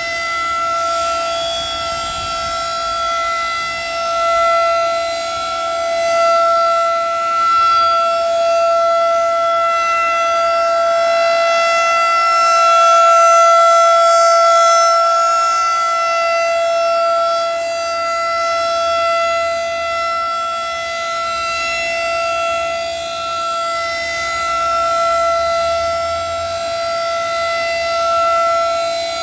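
Federal Signal 2001 DC rotating outdoor warning siren sounding one steady tone at full speed. The sound swells and fades as the horn sweeps round, loudest about halfway through when the horn faces the listener.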